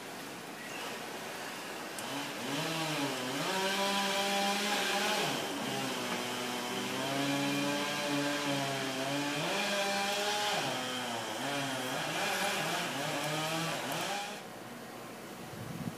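A small engine revving up and down: its pitch climbs about three seconds in and holds high, drops and climbs again twice, then cuts off near the end.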